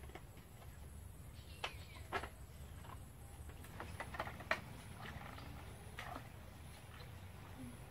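Bamboo walkway slats knocking and clicking under bare feet as people walk across, a few sharp clicks about two, four and six seconds in, over a steady low rumble.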